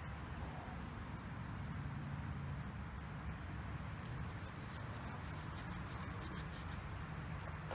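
Steady outdoor background: a low rumble and hiss with a faint, thin, high steady tone.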